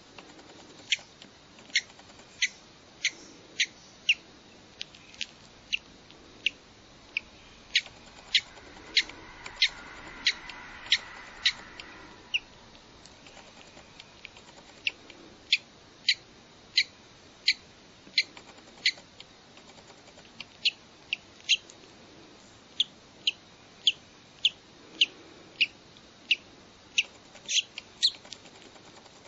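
A bird chick peeping from inside its cracked, hatching egg: short, high peeps repeating about once or twice a second, pausing briefly around the middle. A soft rustling lies under the peeps about a third of the way in.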